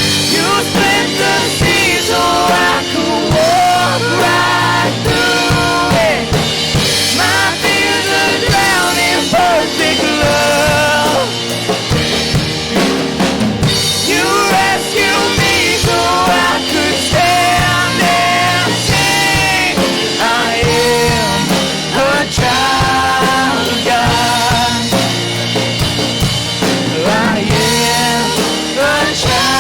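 Live worship band playing a song with full drum kit, bass and other instruments, with voices singing over the band throughout.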